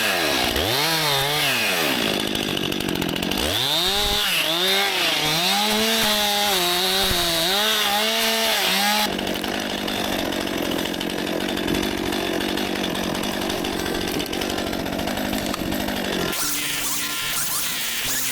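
Stihl MS261 C-M two-stroke chainsaw revving up and down over and over, then running steadily at high speed from about nine seconds in. Background music comes in near the end.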